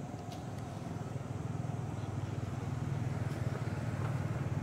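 Low, steady hum of a motor vehicle's engine, growing slowly louder.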